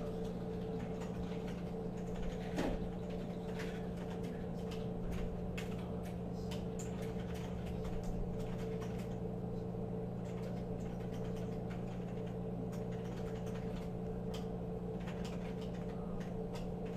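Steady low hum under scattered light clicks and taps of a Phillips screwdriver backing out screws and hands handling a plastic receipt printer's base, with one slightly louder knock a little over two seconds in.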